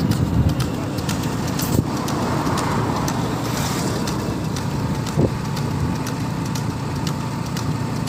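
Steady vehicle and road noise while driving alongside a buffalo cart, with wind on the microphone and a run of light clicks throughout.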